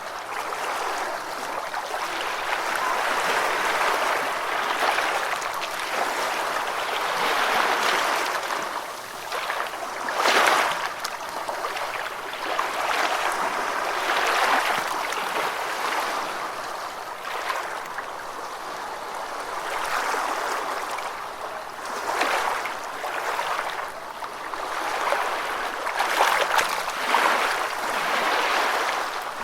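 Gentle ocean waves washing onto a beach: a steady surf hiss that swells and ebbs every few seconds, with a sharper wash about ten seconds in.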